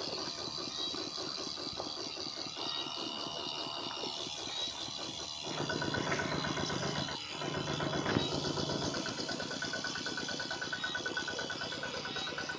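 Small motor of a toy tractor water pump running with a rapid, even pulse. It grows louder about five seconds in, cuts out for a moment a couple of seconds later, then runs on.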